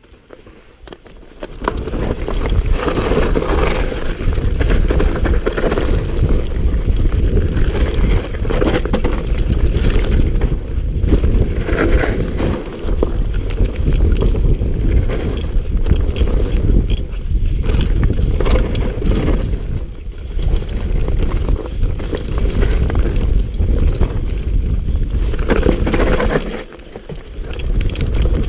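Mountain bike descending a dirt trail at speed: wind buffeting the microphone and knobbly tyres rolling over dirt, with frequent knocks and rattles from the bike over bumps. It starts after a quieter second and a half, and the noise drops briefly near the end.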